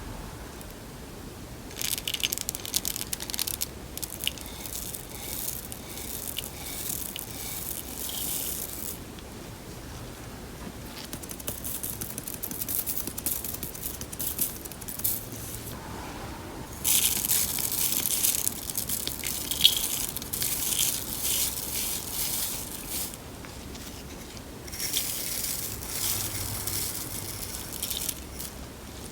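Crunch slime packed with mix-ins being played with, giving dense crackling and popping in several bursts of a few seconds each, with short quiet pauses between.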